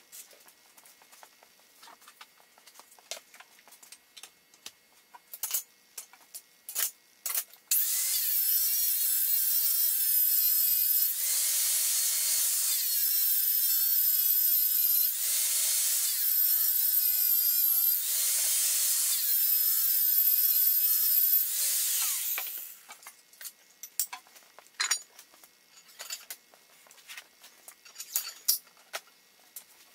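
Angle grinder cutting metal for about fourteen seconds, a loud steady whine whose pitch steps down and back up several times. A few light knocks and clicks of metal parts being handled come before it starts and after it stops.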